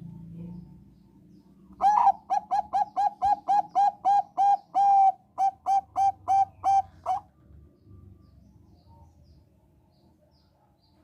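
Zebra dove (Thai 'perkutut bangkok' strain) singing: a fast run of short, clipped coos, about three a second, lasting roughly five seconds.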